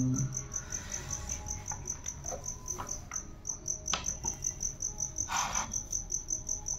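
A cricket chirping steadily, a high pulse about five times a second, over the soft taps and rustle of a large book's pages being handled, with a short paper rustle about five seconds in.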